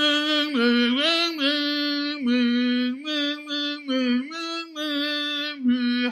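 A woman's voice singing a simple, tuneless song of about ten held notes on one syllable, stepping back and forth between two pitches. In the story this is the golden bird's song, which the hunter calls awful.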